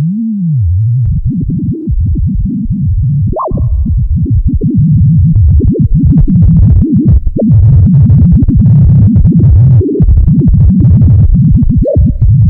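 Exaggerated sonified EEG of a sleeping pigeon's brain, sounding like an electronic synthesizer. A slow, wavering low tone gives way about a second in to dense, rapid low-pitched flickering, which thickens and grows louder from about five seconds in. This follows the brain's shift from the large slow waves of slow-wave sleep to the fast activity of REM sleep.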